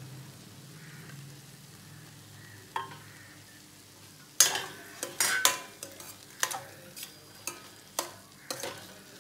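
Steel spoon stirring chopped coriander into a thick okra curry in a stainless steel kadai, scraping and clinking against the pan in a string of strokes, one or two a second, from about four seconds in. Before that it is mostly quiet, with a single clink.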